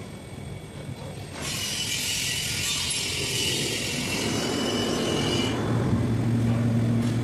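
Machinery on an air compressor: a steady hiss for about four seconds, then a steady low hum sets in near the end.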